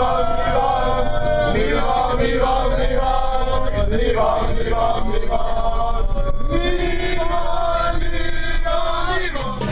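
A group of voices singing a chant together in celebration of a win, with a long held note in the last third.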